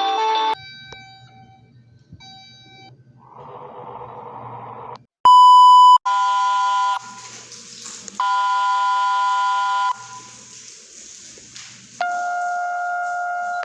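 Electronic emergency-alert alarm tones from a fan-made EAS alarm. After a few faint short beeps and some hiss, a loud steady single-pitch beep sounds for under a second, about five seconds in. A buzzing tone of several pitches at once follows for about a second, sounds again for about two seconds, and starts once more near the end.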